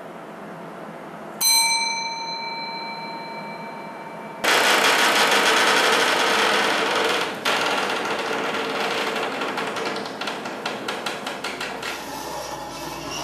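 A metal object is struck once and rings with a clear tone that fades over about three seconds. Then comes a loud rattling, scraping noise made of rapid clicks, which thins to a lighter rattle.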